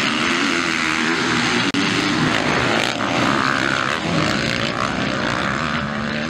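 A pack of motocross bikes racing at full throttle just after the start, several engines revving over one another, with a brief dropout less than two seconds in.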